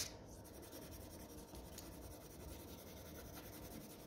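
Dark blue coloured pencil rubbing on paper in steady back-and-forth shading strokes, faint and scratchy, with one short click at the very start.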